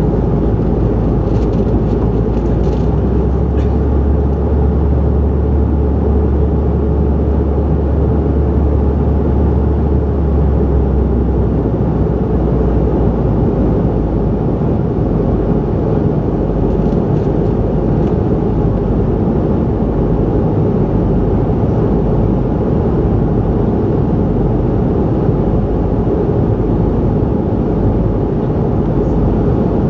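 Steady cabin noise of a CRJ700 airliner in cruise: an even rush of airflow and jet engines. For several seconds early on, a deeper low drone swells and then settles back.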